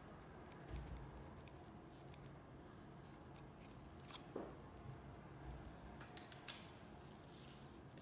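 Faint, scattered clicks and light taps of small repair tools and iPhone parts being handled, with one brief squeak a little before halfway, over a low steady hum.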